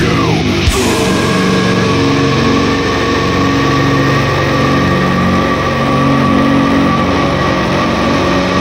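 Droning outro of a heavy metal track: low sustained notes held and shifting every second or two under steady higher tones, without drums.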